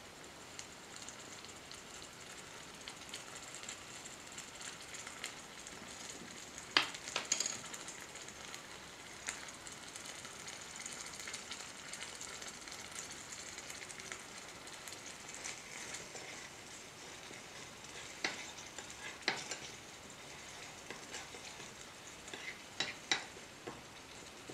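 Curry sizzling in a miniature stainless-steel frying pan, stirred with a metal spoon that clinks sharply against the steel a few times.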